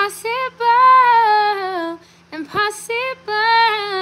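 A woman singing unaccompanied in a high voice: two long held notes that slide downward, with a breath between them.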